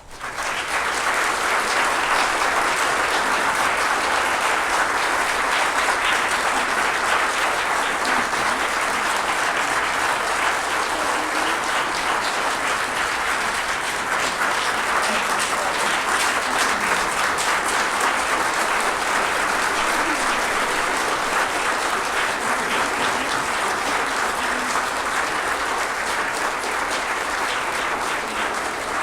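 A large audience applauding a choir and orchestra, coming in suddenly as the music ends and continuing steadily for nearly half a minute before easing off slightly near the end.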